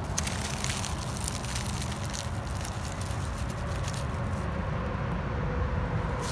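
Dry leaf litter crackling and rustling as a hand picks a small morel mushroom from the forest floor, over a steady low rumble. The crackles fall off after about two seconds.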